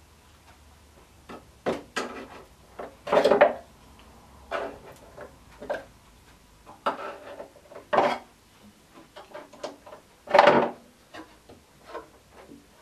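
Plastic spring clamps being handled and snapped onto the edge of a wooden surfboard frame: irregular clicks and knocks, with two longer, louder clatters about three seconds and ten seconds in.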